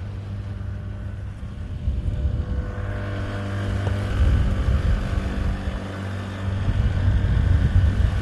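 An engine running steadily with a low hum, under wind rumbling on the microphone; the rumble grows louder after about two seconds.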